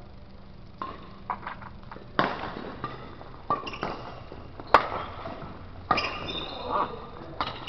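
Badminton rally: a run of sharp racket strikes on a shuttlecock, irregularly spaced, the loudest a smash-like crack about halfway through. Short squeaks of shoes on the court floor come between them.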